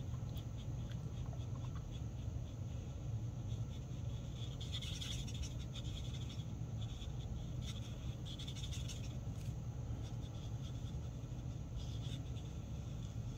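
Marker tip stroking across paper while colouring in a stamped image: soft scratchy strokes that come in short runs, over a steady low hum.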